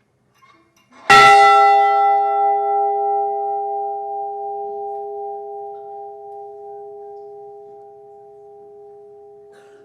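The Edmund Fitzgerald's bronze ship's bell, struck once about a second in and left to ring out in a long, slowly fading tone. It is tolled in memory of one lost crew member.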